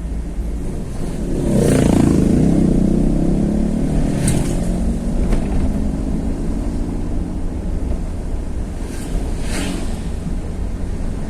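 Vehicle engine running on the move, with constant road and wind rumble. The engine note swells about two seconds in as it accelerates, then eases off slowly, with a few short swishes along the way.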